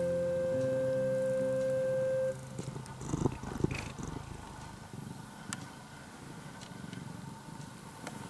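Background music holds a steady chord and cuts off about two seconds in. Then a domestic cat purrs close to the microphone, with a few bumps around the middle as it rubs its face against the camera, and some faint clicks later.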